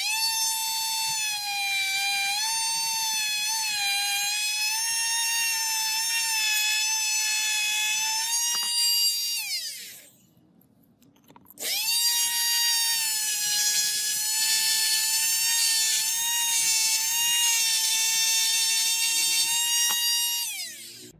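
High-pitched whine of a small high-speed electric motor running steadily, switched off and spinning down with a falling pitch about ten seconds in, then started again and spinning down near the end.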